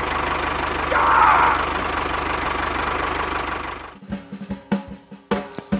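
An engine running steadily, cut off about four seconds in by music with drum strikes.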